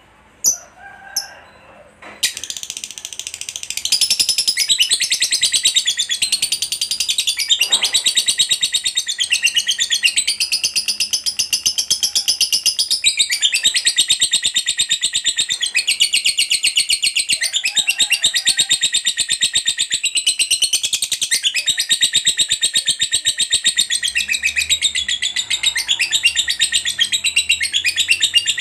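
A lovebird chattering: a few sharp chirps, then from about two seconds in a long, unbroken, very rapid high trill, the prolonged 'ngekek' that lovebird keepers prize.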